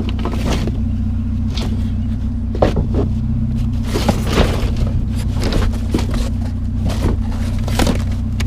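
Vehicle engine idling with a steady low hum, with scattered knocks and clanks of scrap being handled and rummaged through.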